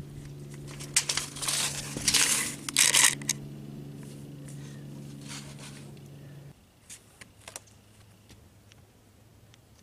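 Rustling and scraping right at the microphone, the loudest of it between about one and three and a half seconds in, as cloth and a tape measure are handled against it. A steady low hum sits underneath and cuts off about six and a half seconds in, leaving a few light clicks.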